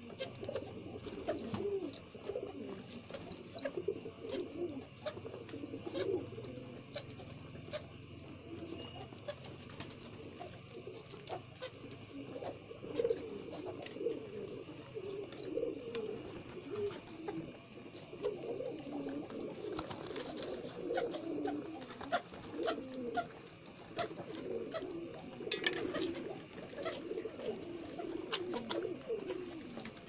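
Several domestic pigeons cooing continuously, low calls overlapping one another, with scattered light clicks.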